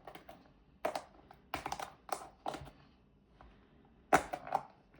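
Crackling and rustling of a Pokémon card booster bundle's packaging being handled and worked open, in short bursts with a pause in the middle and the loudest crackle about four seconds in.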